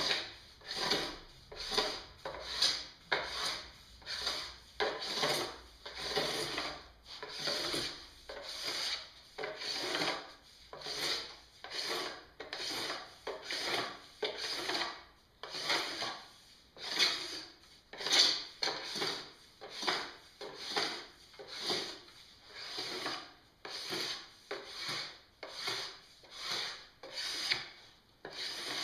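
Metal scraper drawn in repeated strokes across a snowboard's plastic base, shaving off excess P-Tex filler dripped into the gouges; a little more than one stroke a second. The blade jumps over the hardened bumps of P-Tex as it goes.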